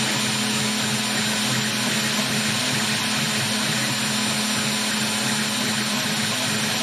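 CNC spindle motor running steadily at speed while drilling 1 mm holes in a copper-clad PCB, an even motor hum and hiss.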